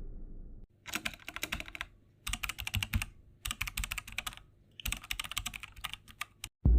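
Computer keyboard typing: four quick runs of key clicks, each about a second long with short pauses between, then a few single clicks near the end. A low rumble fades out in the first moment.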